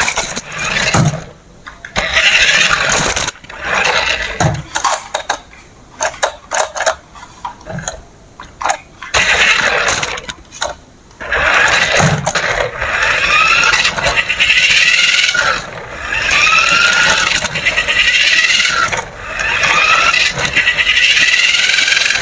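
Small electric motors and plastic gears of a remote-control toy excavator whirring in repeated bursts of a few seconds, the whine rising and falling in pitch as the motors start and stop, with clicks and rattles between runs.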